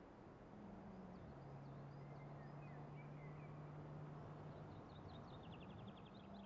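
Faint outdoor ambience with small birds chirping, ending in a rapid trill near the end. Under it runs a faint, steady engine note from a distant car, dropping in pitch about a second in and rising again near the end.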